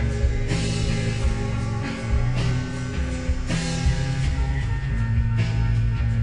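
Slowed-down, reverb-heavy screamo rock music: sustained guitars over heavy low notes and drums, with cymbal washes swelling every second or so.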